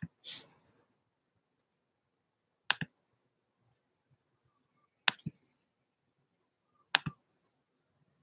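Sharp clicks from handling a phone close to the microphone: one at the start, then three double clicks about two seconds apart.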